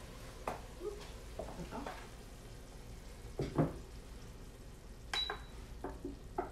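A wooden spoon knocking and scraping in an enamelled cast-iron pot of browned ground beef, which is sizzling faintly. A short high beep comes about five seconds in, from the induction cooktop's controls.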